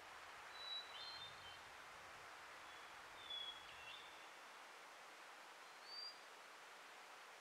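A few faint, short, high-pitched animal calls, each slightly falling in pitch and spread out: two close together about a second in, one halfway through and one near the end. Behind them is a near-silent, steady outdoor background.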